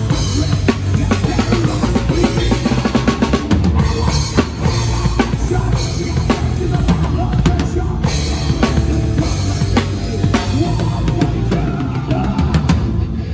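Rock drum kit played live and fast: dense bass-drum strokes and snare hits under ringing cymbals, within loud band music.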